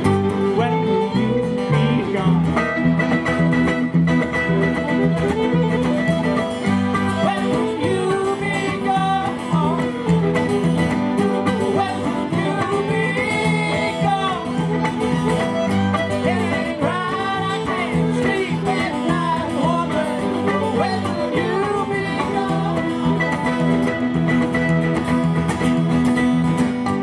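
Live acoustic string band playing a country/bluegrass-style song: acoustic guitar strumming, mandolin and upright bass, with a man singing lead into the microphone through the middle of the passage.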